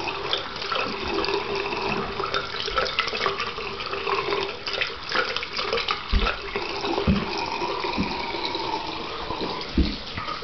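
Water running from a bathroom sink tap into the basin, a steady splashing hiss, with a few soft thumps of handling about two thirds of the way in.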